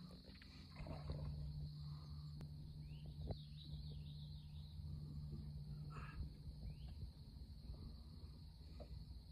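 Faint outdoor ambience. Insects keep up a steady high drone, and a few short bird chirps come near the middle. Under them runs a low steady hum that eases off after about six seconds.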